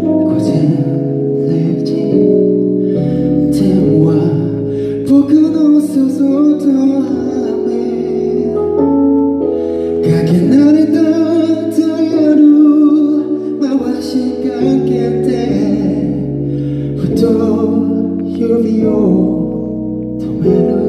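A male solo singer singing a slow song into a handheld microphone over backing music of sustained chords that change every second or two, amplified through a hall's sound system.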